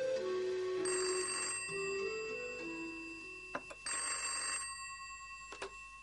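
Telephone bell ringing twice, about three seconds apart, each ring trailing off, over a slow sad music melody that fades away. Two sharp clicks follow, one just before the second ring and one near the end.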